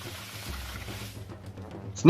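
Faint background music under a steady hiss that fades out a little over a second in.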